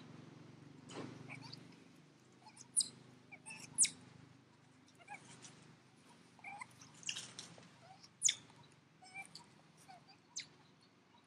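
Scattered short animal chirps and squeaks, the sharpest and highest about three, four and eight seconds in. A low hum fades out in the first two seconds.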